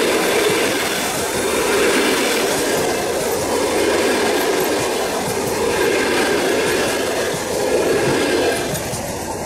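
Passenger coaches of a train rolling past at speed: a steady rumble of steel wheels on the rails that swells and eases every couple of seconds as the coaches go by, then drops away near the end as the last coach passes.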